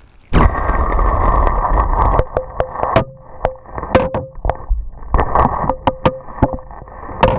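Water heard through a Sennheiser MKE-2 Elements mic as it is plunged in. A sudden splash and rushing slosh lasts about two seconds, then irregular clicks and knocks follow while the mic sits submerged.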